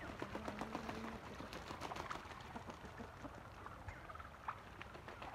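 Faint, scattered short calls from backyard poultry, over a scatter of faint clicks.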